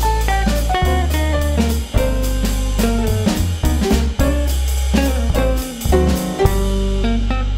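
Background music: a jazzy, bluesy instrumental with guitar, drums and a steady bass line.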